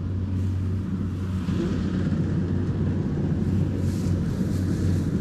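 Diesel engine of a rice combine harvester running steadily with a low hum, a little louder from about a second and a half in.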